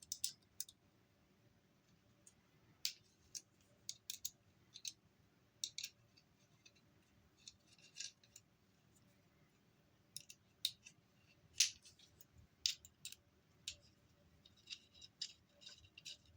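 Faint, irregular small metal clicks and taps from an Allen wrench and a reflex sight's mount being handled while the sight is fitted to a shotgun's rail, with a quick run of clicks near the end.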